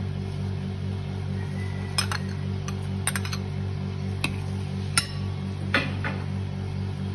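Metal spoon clinking against a ceramic bowl while stirring a liquid dressing: a scatter of sharp clinks from about two seconds in, over steady background music.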